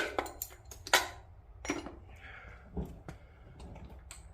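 Metal tools and engine parts being handled and set down: a few sharp clinks and clanks about a second apart, with one duller knock near the end.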